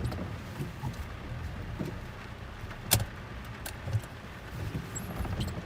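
Off-road vehicle's engine running with a steady low rumble, with scattered soft knocks and one sharp click about three seconds in.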